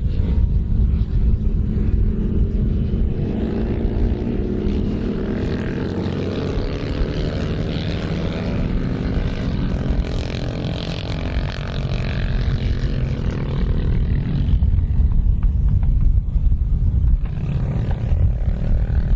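Britten racing motorcycle's V-twin engine running hard. Its note climbs in pitch for several seconds, peaks about halfway through, then falls away as it passes and fades.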